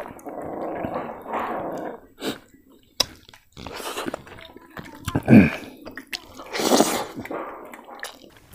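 A man eating rice and catfish curry by hand: wet chewing and smacking with the mouth close to the microphone. The sounds come irregularly, with a louder wet sound about five seconds in and another near seven seconds.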